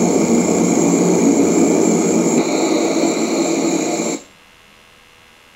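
Pressure relief valve on a Hydro-Tek hot-water pressure washer's coil venting: a loud, steady hiss as over-pressure in the overheated coil blows out as steam. A higher note joins about two and a half seconds in, and the hiss cuts off suddenly about four seconds in as the valve reseats.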